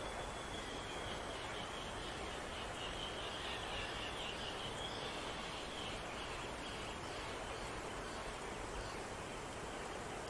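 Quiet woodland ambience: a steady outdoor hiss. Over it, a faint high-pitched song or trill wavers for about the first half, followed by a few faint high chirps.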